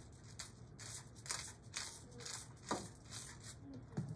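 Hand-twisted pepper grinder grinding over a tray of vegetables: a run of short gritty grinding strokes, a few a second. A knock near the end as it is set down on the counter.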